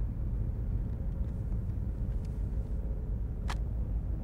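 Low, steady rumbling drone of a film soundtrack's ambient sound design, with one faint short click about three and a half seconds in.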